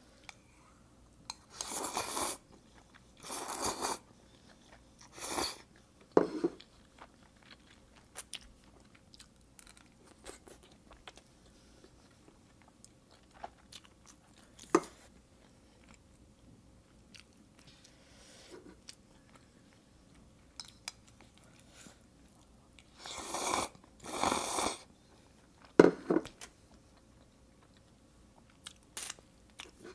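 Close-miked eating of chewy instant stir-fried noodles: chewing and small mouth clicks, with several loud slurps in two clusters, one near the start and one near the end.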